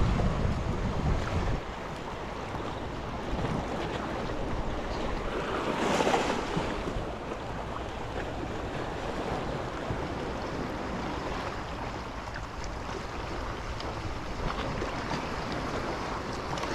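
Wind buffeting the microphone over small sea waves washing against shoreline rocks; the wind rumble is heavier in the first second or so, and a louder wash swells up around the middle.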